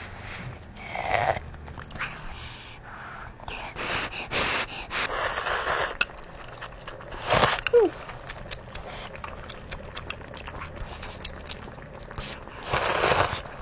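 Close-miked mouth sounds of eating spicy noodle soup: several loud slurps of noodles and broth, the longest in the middle and near the end, with quieter chewing between.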